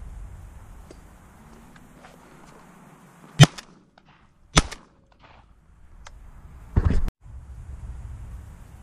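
Shotgun fired at pigeons from a hide: two sharp shots a little over a second apart, then a short, heavier blast of about a third of a second near the end, over low wind rumble on the microphone.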